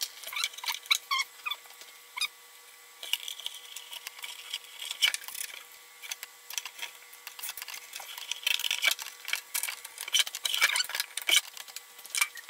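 Plastic pipe fittings and tubing being handled and pushed together on a plywood board: irregular clicks, taps and rubbing as a tee fitting goes onto the line, over a faint steady hum.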